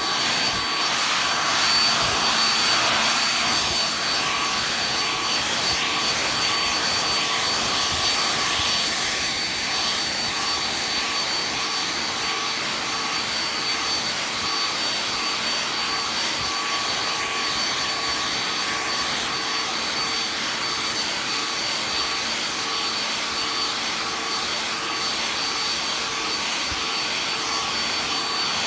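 Handheld hair dryer running steadily, blowing air with a thin steady whine over the rushing noise.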